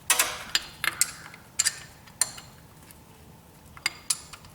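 Irregular sharp metallic clinks, about eight in all and mostly in the first half, of a hand wrench knocking against a bolt and the engine block while a mechanical fuel pump bolt is worked loose by hand.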